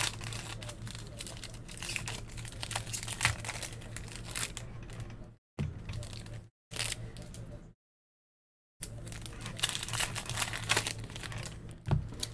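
Foil trading-card pack wrappers crinkling and tearing as packs are ripped open by hand. The sound cuts out to complete silence a few times around the middle.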